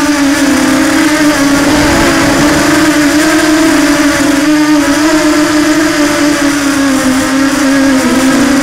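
Electric motor and propeller of a small FPV aircraft running with a steady whine, its pitch rising and dipping slightly, with a short dip near the end.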